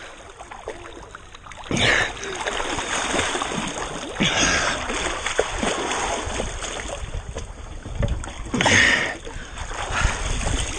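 Lake water splashing and sloshing close to a camera held at the water's surface, as a swimmer moves through the water and climbs a dock ladder. There are louder splashes about two, four and nine seconds in.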